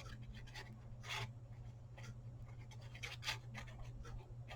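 Faint rustling and rubbing of paper being handled and pressed down, with a few soft scrapes (the clearest about a second in and again past three seconds) over a low steady hum.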